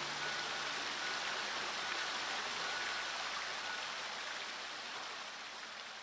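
A fountain's water splashing and spilling into its basin, a steady rushing hiss that fades slightly toward the end.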